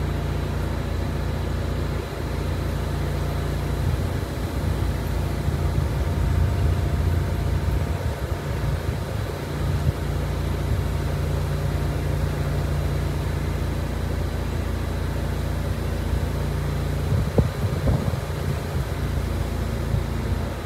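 A small engine running steadily at a constant speed, giving an even low hum.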